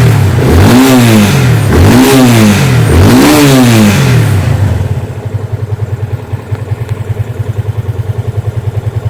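Yamaha FZ25's single-cylinder engine revved three times in quick succession, each blip rising and falling, then settling to a steady idle about halfway through.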